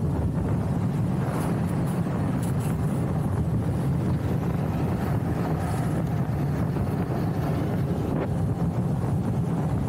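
Street luge wheels rolling fast on asphalt, a steady rumble, mixed with wind rushing over the microphone.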